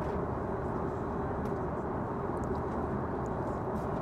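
Airbus A330-900neo cabin noise in cruise: a steady rush of air with a faint constant hum, and a few faint light clicks.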